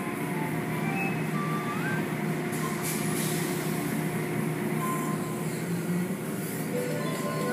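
Automatic tunnel car wash running, heard from inside a car: a steady mechanical hum with the wash of spraying water and brushes.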